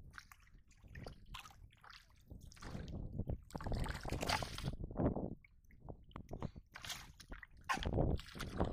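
Shallow muddy water splashing and sloshing in irregular bursts as a large fish is grabbed by hand among water weeds, with the loudest splashes about halfway through and near the end.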